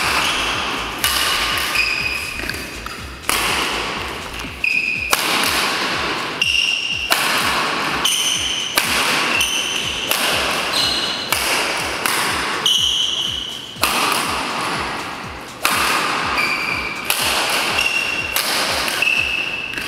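Badminton rackets hitting shuttlecocks in quick succession, about once a second, each sharp hit echoing in a large hall, with short high squeaks in between.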